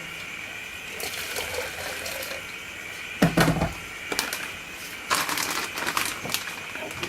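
Water pouring and splashing into a brewing vessel, with a loud knock about three seconds in and a few smaller clicks.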